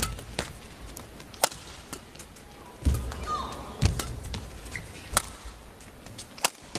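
Badminton rally: sharp racket hits on the shuttlecock, about one a second. Two heavy thuds of footwork on the court come around three and four seconds in, with a brief shoe squeak between them.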